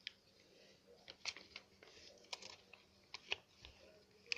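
A handful of faint, irregular clicks and light rustling: hands handling a stain-remover container while adding it to a washing machine.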